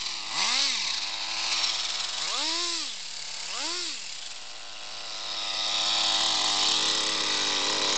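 O.S. Max two-stroke nitro glow engine in an RC10 GT truck, blipped three times from idle with quick rises and falls in pitch, then revved up and held high for the last few seconds.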